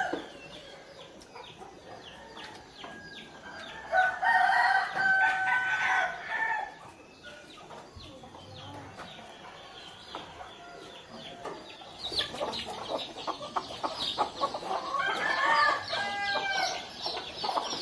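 A rooster crows once, one long call about four seconds in. From about twelve seconds in, chickens cluck.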